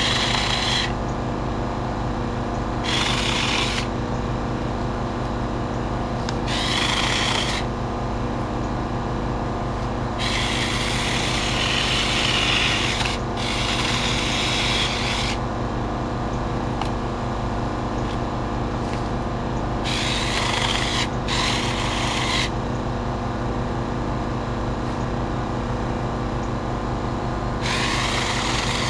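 Small cordless electric mini chainsaw running steadily, with repeated bursts of rasping as the chain cuts through branches, each cut lasting one to three seconds.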